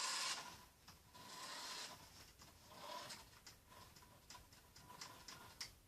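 Remote-control toy car's small electric motor whirring, cutting off a moment in, then starting again faintly in short spurts. Scattered light clicks run through the quieter part.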